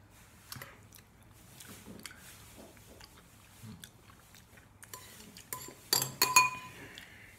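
Metal utensil clinking and scraping against a soup bowl, with chewing between the strikes. The clinks are scattered, with the loudest, ringing ones in a quick cluster about six seconds in.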